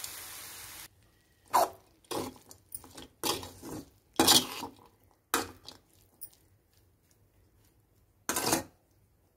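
Frying in a kadai hisses steadily, then cuts off suddenly about a second in. After that comes a metal spoon stirring beans poriyal in the metal kadai: about eight separate scrapes and clinks against the pan, the last one near the end.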